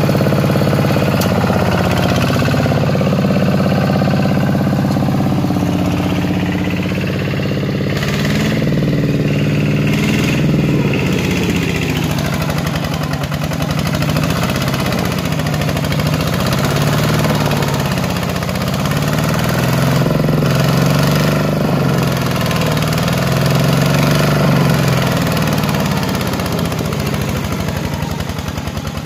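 Single-cylinder diesel engine of a two-wheel walking tractor running under load while it hauls a trailer heavily loaded with sawn planks over a rough, muddy track. The engine note holds fairly steady at first, then rises and falls in repeated waves through the second half.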